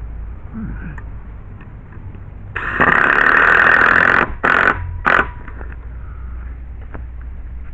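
Cordless drill driving a screw: one run of about a second and a half, then two short pulses to seat it, over a low steady wind rumble.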